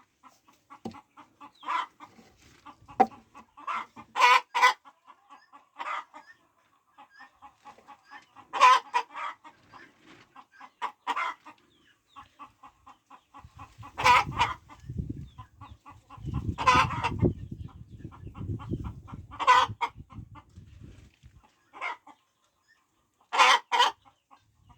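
Chickens clucking: a run of soft, quick clucks broken by louder calls every few seconds. A low rumbling noise runs for a few seconds around the middle.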